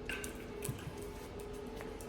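Steady background hum with a few faint clicks and small handling knocks.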